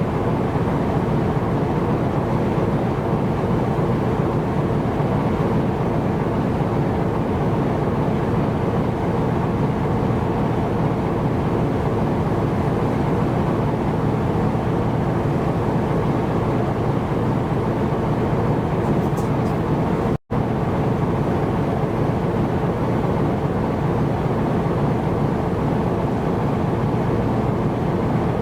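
Steady drone of a ship's engine and the rush of passage at sea, a low even noise with a faint hum running through it. It cuts out for a split second about twenty seconds in.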